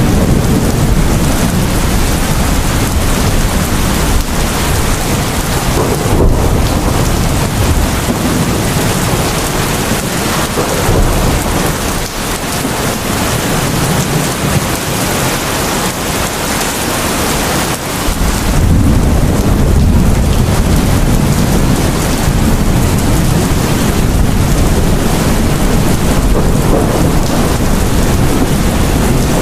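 Heavy rain pouring down steadily with low, rolling thunder rumbling under it. The thunder eases for several seconds near the middle and swells again about two-thirds of the way through.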